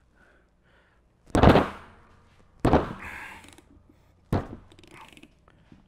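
Three sharp hand strikes on a half-inch breaker bar and spline socket, each a sudden knock with a short ring after it, the first the loudest. The blows are jarring loose a tight delivery valve holder on a P7100 diesel injection pump, torqued to 84 foot-pounds.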